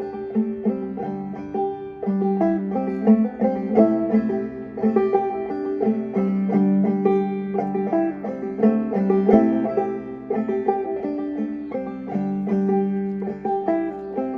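Solo banjo played clawhammer style: a lively run of plucked notes over a steady ringing drone.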